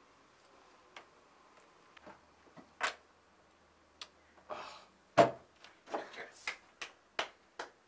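Domino tiles clacking on a wooden table: scattered single clicks, one loud slap a little past the middle, then a quick run of clicks, about three a second, near the end.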